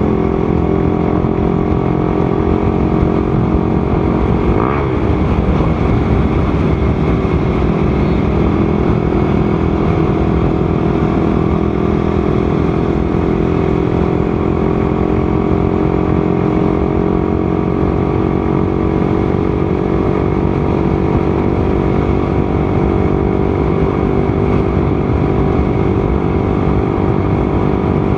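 Motorcycle engine running steadily at cruising speed, with a rushing noise underneath. A brief warbling sound comes about five seconds in.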